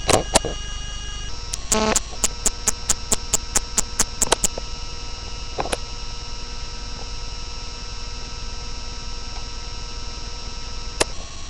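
Steady electrical hum, with sharp clicks over it: two near the start, a quick run of about five a second from about two to four and a half seconds in, and single clicks later.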